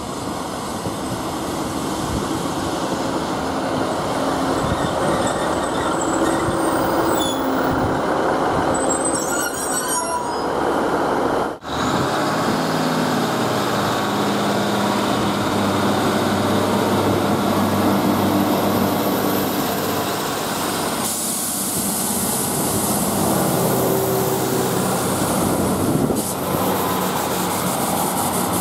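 Class 150 diesel multiple unit braking into a station with faint brake squeal, then its diesel engines running steadily alongside the platform with a low hum. A hiss of air starts about two-thirds of the way through.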